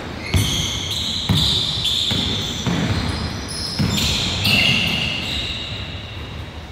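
Basketball dribbled on a hardwood gym floor, bouncing several times, with short high sneaker squeaks over the bounces.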